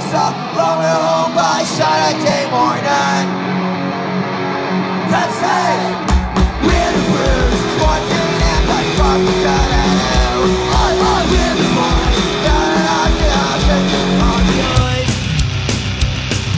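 A live punk rock band playing: singing over guitars, with the bass and drums coming in hard about six seconds in.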